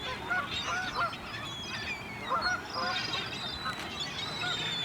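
A large flock of waterbirds calling together: many short, rising-and-falling calls overlapping continuously, some near and some farther off.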